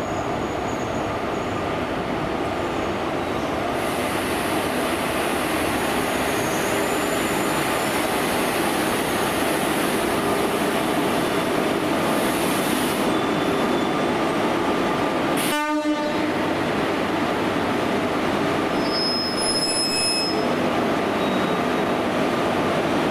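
Indian Railways WAG-7 electric locomotive and ICF passenger coaches: a steady, loud rail and running noise as the train comes in, broken off suddenly about two-thirds of the way through, with short high squeals a few seconds later.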